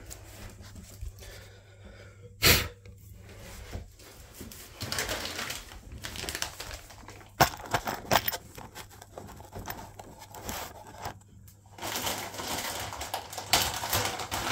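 Handling noise: a sharp knock about two and a half seconds in, then scattered clicks and rustling, from hands handling the phone camera and the chrome shower fittings.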